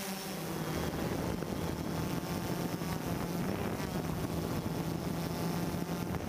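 DJI Phantom quadcopter's propellers running with a steady hum, its pitch dipping slightly now and then, under a rushing wind noise.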